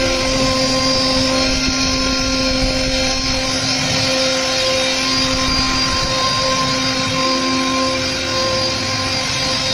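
CNC router spindle whining steadily as its bit carves a teak door panel, the cutting adding a hiss over the whine. A lower hum joins at the start and again about seven seconds in.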